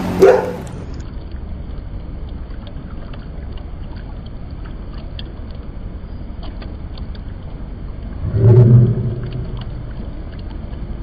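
Water sloshing and swirling as a hand stirs it round in a plastic bucket, with a single deep dog bark about eight seconds in.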